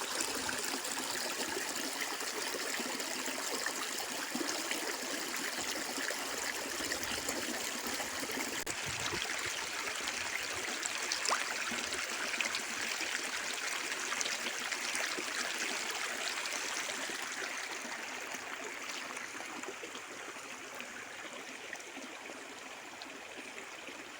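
Stream water running with a steady rush and trickle, fading down over the last several seconds.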